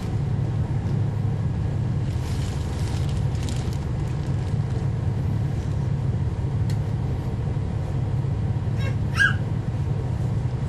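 Inside a 2011 NABI 40-SFW transit bus, its Cummins ISL9 diesel and drivetrain give a steady low rumble. A soft rushing noise comes and goes around two to three seconds in, and a brief high squeak sounds about nine seconds in.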